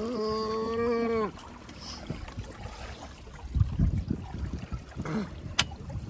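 A person's voice held on one steady tone for about a second, like a long hum, then water lapping and splashing against a small sailing dinghy's hull. A short voice sound and a single sharp click come near the end.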